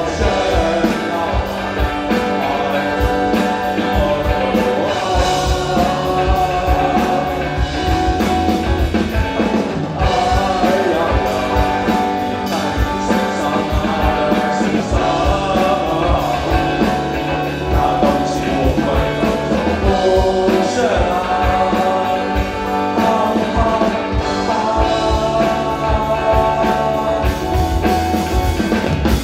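Live rock band playing a song with drum kit, bass, electric guitars and keyboards, a bending melody line riding over the steady beat.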